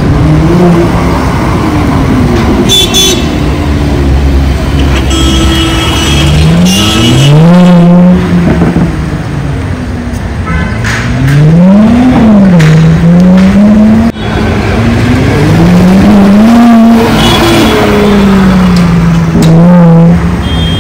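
Sports car engines revving in traffic, their pitch climbing, holding and dropping back several times over a steady background of street traffic.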